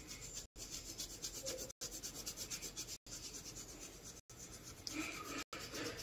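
Rapid scratchy strokes rubbing on paper, broken several times by abrupt brief gaps.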